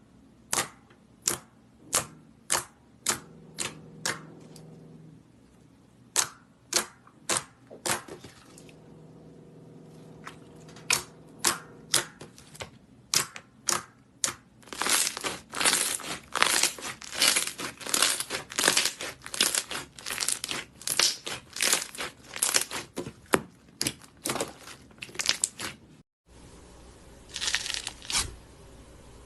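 Slime being squeezed and pressed by hand, giving sharp wet clicking pops about two a second, then a dense run of crackling pops about halfway through. The sound cuts off suddenly near the end, then a few more pops follow.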